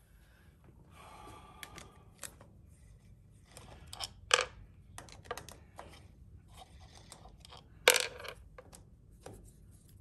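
Screws being taken out of a Colchester lathe's headstock top cover and set down on the metal cover: scattered light metallic clicks and scrapes, with two sharp clinks about four and eight seconds in.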